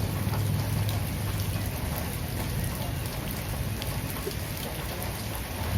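Steady rain falling, an even hiss dotted with scattered drop ticks, with a low rumble in the first second or so.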